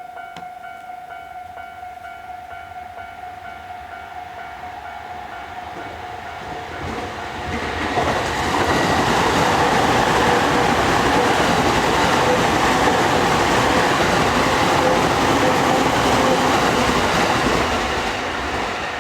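Japanese level-crossing warning bell ringing with an evenly repeated clanging tone. About eight seconds in, a JR Sobu Line train passes through at speed, its wheels rumbling loudly on the rails for about ten seconds and easing off near the end, with the bell still faintly heard.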